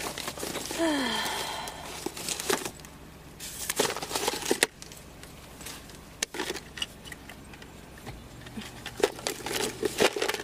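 Rummaging through a car's centre console: papers rustling, with scattered plastic clicks and knocks as things are handled, and a short falling squeak about a second in.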